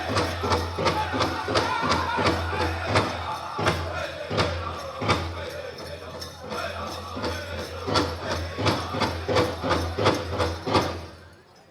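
Powwow drum group singing over a big drum struck in a steady beat of about three strokes a second. The drumming softens for a stretch in the middle and stops with a last beat shortly before the end.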